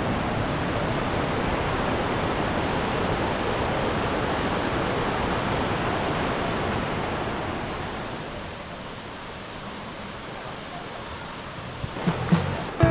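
Steady rush of a mountain valley stream's water, dropping to a lower level about eight seconds in. A plucked guitar comes in near the end.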